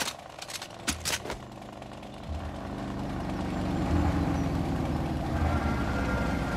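A few sharp cracks from the honor guard's rifles in the first second and a half, then the low rumble of a column of police motorcycles approaching, growing louder and holding steady.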